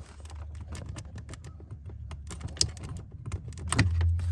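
Quick, irregular small clicks and taps of hands working fuses at a truck's interior fuse panel, over a steady low hum. A louder knock comes near the end, followed by a stronger low hum.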